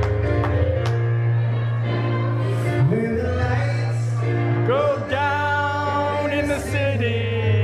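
Live grand piano playing with a man singing into a microphone, amplified through the room's speakers; the voice comes in clearly with a sliding note about five seconds in.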